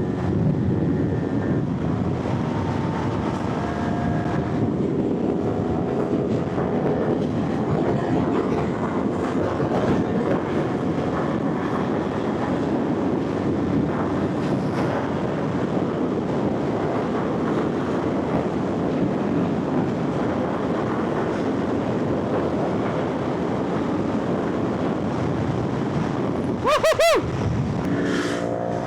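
Motorcycle engine running under way, mixed with steady wind rush on the microphone, its pitch drifting gently with the throttle. About two seconds before the end comes a sharp, quick rev that rises and falls.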